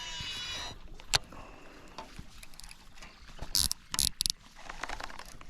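Fishing reel during a jerkbait cast and retrieve: the spool whines, falling in pitch as it slows, then a sharp click about a second in as the reel engages. Quieter reel cranking follows, with a few short bursts of high clicking near the end.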